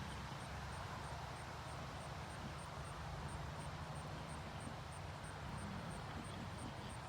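Steady outdoor background noise with a low rumble, and a faint high-pitched pulse repeating about three times a second.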